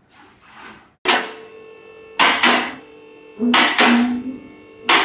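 Background music with loud percussive hits, some in pairs, ringing over sustained low notes, cutting in abruptly about a second in.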